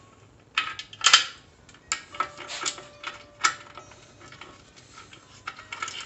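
Irregular clicks and light clatter of cookware being handled, with the loudest cluster about a second in.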